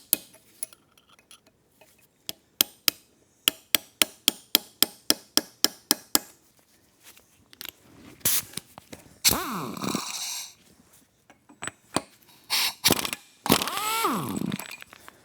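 A quick run of sharp metallic taps or clicks on engine parts, about four a second. Then come two short bursts of a power tool, each motor winding down in pitch as it stops.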